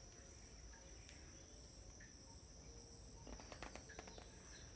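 Faint, steady high-pitched trilling of crickets, with a few light clicks near the end.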